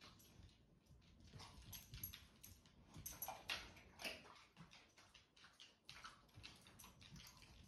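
A dog's nails clicking faintly and irregularly on a hardwood floor as it moves around and searches, with a few soft rustles.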